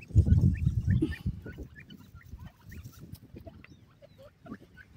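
Grey francolins calling with short, high, rising chirps, several a second. A louder low-pitched rumble fills the first second or so.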